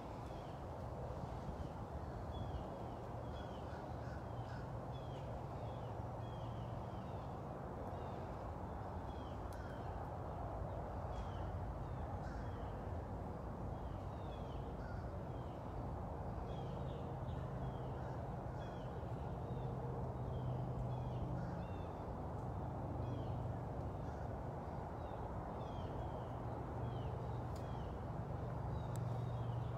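A bird calling over and over in short falling chirps, roughly once a second, over a steady low background rumble.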